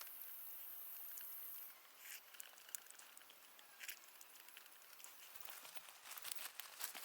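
Faint scattered patter and small ticks, with a thin high hiss for about the first second and a half.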